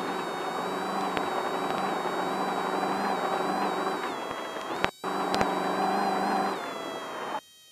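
Off-road race car running under way, a steady engine tone with a few sharp knocks. The sound drops out briefly about five seconds in, and again abruptly near the end.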